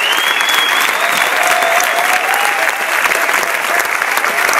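A large audience applauding steadily, a dense, continuous sound of many hands clapping.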